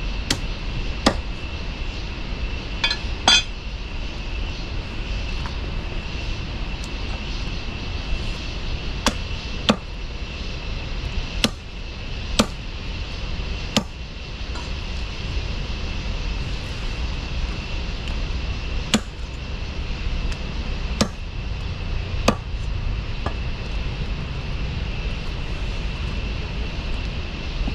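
A knife chopping black chicken into small pieces on a wooden log chopping block: about ten sharp, irregular chops. Under them runs a steady low rumble with a faint high whine.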